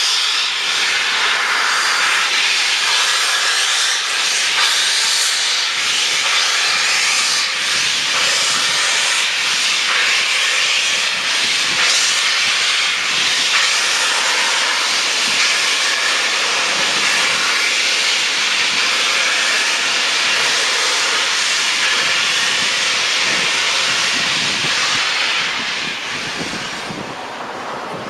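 Steam locomotive 60163 Tornado, a Peppercorn A1 Pacific, venting steam in a loud, steady hiss that eases off near the end.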